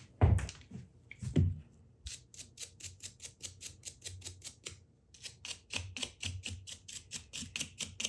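A large vintage Jacobs drill chuck being twisted by hand in a shop rag. Its sleeve and jaws, still grimy from a rust-remover soak, give a quick, even run of gritty clicks of about five a second, with a short pause about halfway. It opens with a few heavy thuds as the chuck is picked up.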